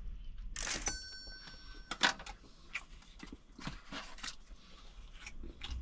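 Tableware clinks once about half a second in and rings briefly, then a run of small scattered clicks and crunches from someone eating a meal.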